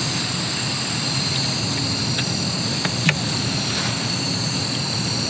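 Crickets singing steadily in high, continuous trills over an even background hiss, with a few faint clicks and a sharper click about three seconds in.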